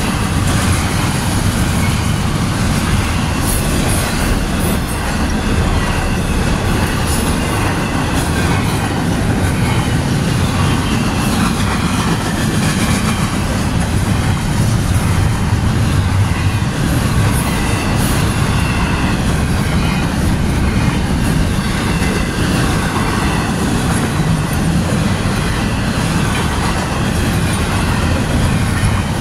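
Freight train of double-stack container cars rolling steadily past: a continuous rumble of steel wheels on rail with clickety-clack over the joints and a thin, high wheel screech running over it.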